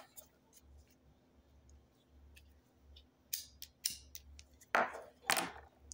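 A few faint clicks, then two breathy puffs about half a second apart near the end: a man drawing on a lit cigarette.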